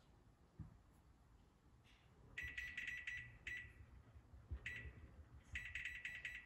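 Oven touchpad control panel beeping with each press of the temperature-up button, in quick runs of short, high beeps with single beeps between, as the preheat temperature is raised toward 450°F.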